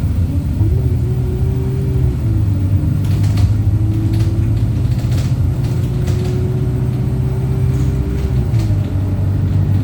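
Wright StreetLite single-deck bus running: a steady low engine drone, with a fainter whine that rises and falls in pitch several times and a few short rattles.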